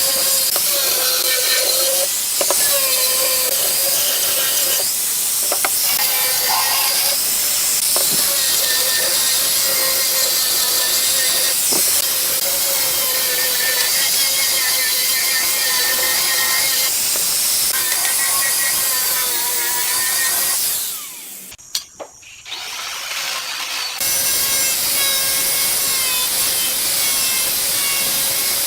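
An electric power tool running steadily and working wood, a constant motor hum under cutting noise. About 21 seconds in, the sound drops away sharply for about three seconds, then comes back at full level.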